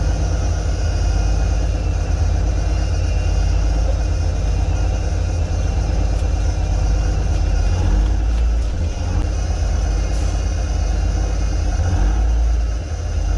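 Heavy truck engine idling steadily while its air brake system builds up pressure.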